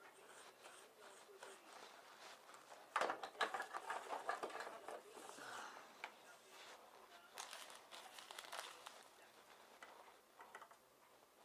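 Faint clicks and rustles of small tools and parts being handled at a workbench during capacitor replacement on a circuit board, busiest about three seconds in and again around eight seconds.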